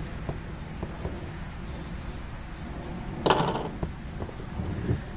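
Handling noise from taking apart a two-stroke leaf blower's plastic housing: light clicks and knocks of parts and tools, with one short, louder scrape about three seconds in.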